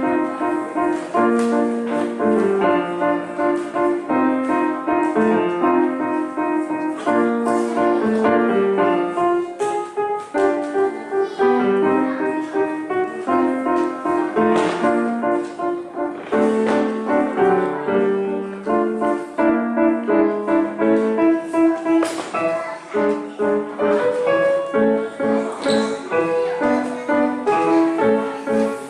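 Piano playing a quick, lively piece: rapid repeated notes over a moving bass line.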